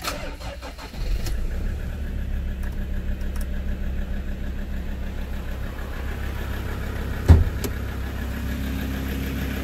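Ford Ranger's 3.2-litre five-cylinder diesel engine starting about a second in and then idling steadily, heard from inside the cab. A single thump sounds about seven seconds in.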